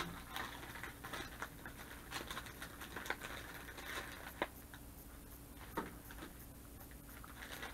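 Light rustling of a plastic bag and scattered small clicks as packaged hardware and a small plastic tub of plumber's grease are handled.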